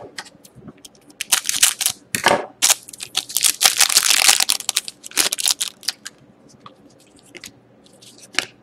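Foil trading-card pack wrapper crinkling and tearing open in a string of crackly bursts. Quieter rustles and clicks of handling follow in the second half.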